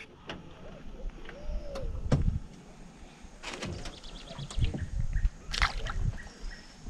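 Scattered small knocks and handling noises, then a short splash about five and a half seconds in as a small palometa is dropped back into the river.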